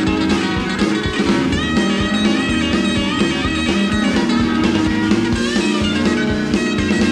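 Rock-and-roll band playing: an electric guitar solo of quick runs and bent notes over bass and drums.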